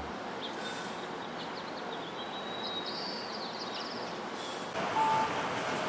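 Steady outdoor street ambience: a hiss of traffic noise with a few short high chirps in the middle, and a brief beep near the end as the noise rises slightly.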